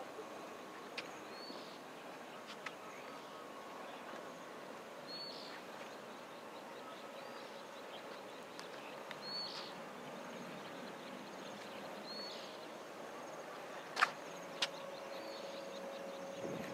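Faint outdoor ambience: a steady hiss with short high bird chirps every three to four seconds, and a sharp click about fourteen seconds in, after which a faint steady hum sets in.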